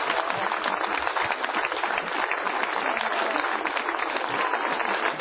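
Crowd applauding, a dense, steady clapping with no break.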